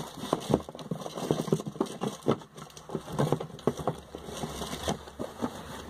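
Plastic packaging being handled: irregular crinkling and rustling with light clicks and taps as items are rummaged through.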